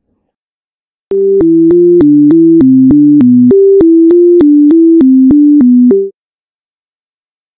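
Short electronic synthesizer tune: a simple melody of quick, evenly spaced notes, with a lower line under its first half. It starts about a second in and stops abruptly after about five seconds.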